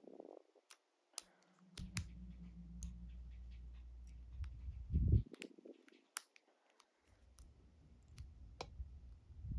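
Faint, scattered metallic clicks and taps of a dimple pick working the pins of an old-style Ultion 3-star euro cylinder. A soft low rumble from handling comes in twice.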